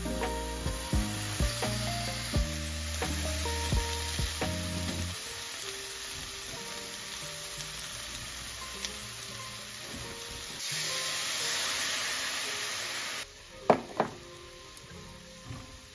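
Lotus root slices sizzling and frying in a stainless steel frying pan as they are stirred with chopsticks, with background music over the first few seconds. The sizzle turns into a louder hiss about two-thirds of the way in, cuts off abruptly, and is followed by a couple of sharp knocks.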